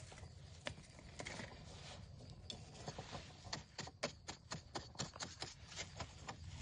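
A series of sharp knocks or clicks, sparse at first and then coming quickly, several a second, from about halfway through.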